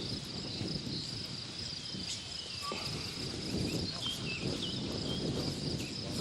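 Steady high-pitched insect trilling, like crickets, with uneven low rustling underneath and a few faint chirps.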